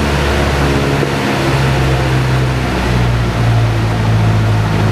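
Cessna 172's piston engine and propeller running steadily, heard from inside the cockpit; the engine note drops a little in pitch about three seconds in.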